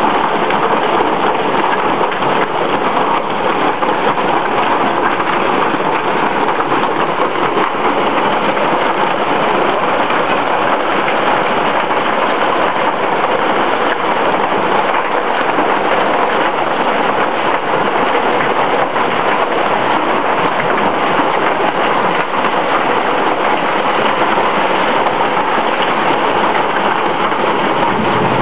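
Hailstorm: hail pelting down without a break, a dense, steady hiss of countless small impacts.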